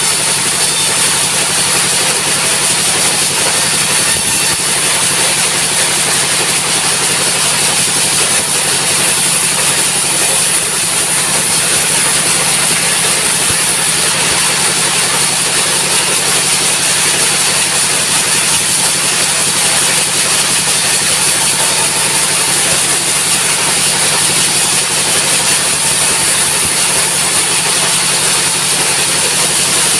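Sawmill's diesel engine and circular saw running steadily, with a constant high-pitched hiss over the engine noise.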